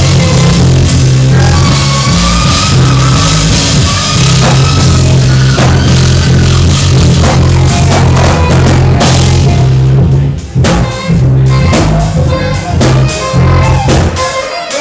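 A live band playing loud rock-style music, with a drum kit and a heavy, steady bass line; the sound dips briefly about ten and a half seconds in.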